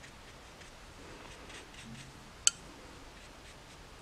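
Faint, repeated strokes of a watercolour brush on paper, with one sharp click about two and a half seconds in.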